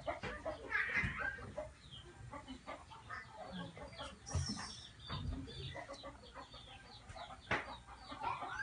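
Scattered short animal calls, with a few sharp clicks, the loudest about seven and a half seconds in.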